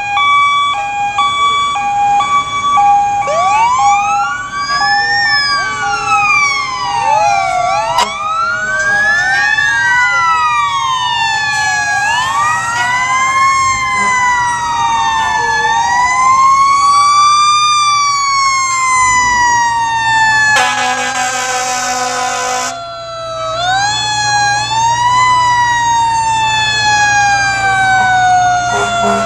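Several fire engine sirens sounding at once, their tones winding up and then slowly winding down in overlapping rising and falling wails, over the low rumble of the trucks' engines. About two-thirds of the way through there is a loud horn blast of about two seconds.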